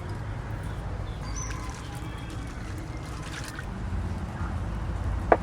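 Water trickling and sloshing in a bowl as cauliflower pieces are put to soak in salted water, with a single sharp knock near the end.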